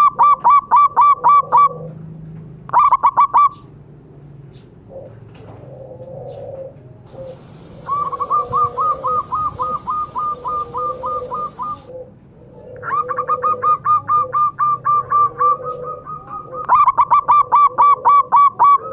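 Zebra doves (perkutut) calling back and forth: loud bursts of rapid, clipped cooing notes, about seven a second, with short pauses between bursts, over a softer, lower cooing.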